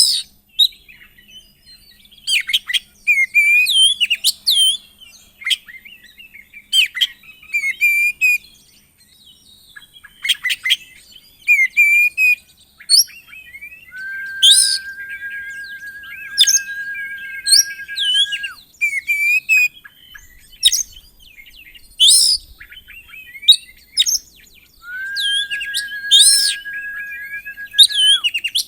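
Oriental magpie-robin (kacer) singing a varied song of short, sharp whistled phrases, broken twice by a long, steady whistled note held for about four seconds, once in the middle and once near the end.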